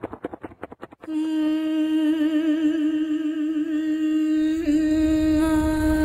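The rapid pulsing of a logo sound effect fades out, then background music enters about a second in with a long held note that has a slight vibrato.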